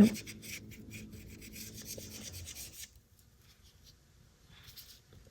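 Paintbrush scrubbing acrylic paint across gesso-primed mixed media paper in a run of short rubbing strokes for about three seconds. After a pause, one faint stroke comes near the end.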